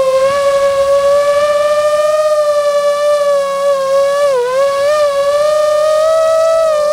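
Nazgul Evoque F6 quadcopter's brushless motors and propellers whining at a mostly steady pitch. The pitch dips briefly a little past halfway and then climbs slightly as the throttle changes.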